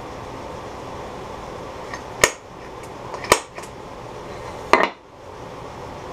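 Three sharp knocks and clinks about a second apart as an awl and a small oak blank are handled on a metal lathe bed, over a steady hum.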